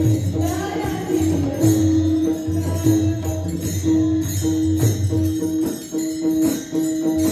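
Devotional kirtan music: small brass hand cymbals (taal) clashing in a steady rhythm over a low pulsing beat and a repeated held note, with no singing.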